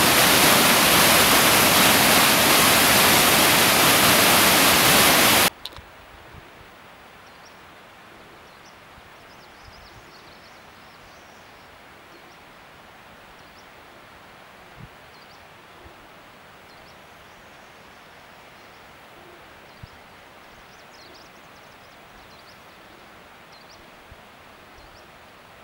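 Mountain stream rushing over rocks and fallen logs, a loud steady rush of white water that cuts off abruptly about five seconds in. After that comes a quiet open-air hush with faint, scattered high chirps and a few soft clicks.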